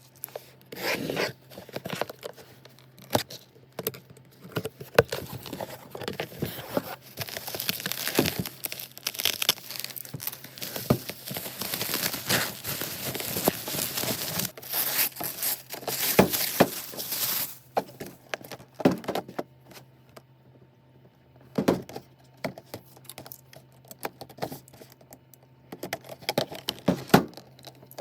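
Packaging being handled and torn open by hand: paper and plastic tearing, crinkling and scraping, with scattered clicks and knocks. It is busiest early on, then thins to occasional handling noises after a brief lull.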